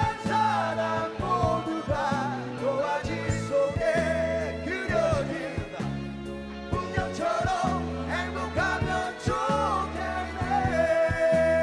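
Male voices singing together into microphones, backed by a live band with drums, guitars and keyboards.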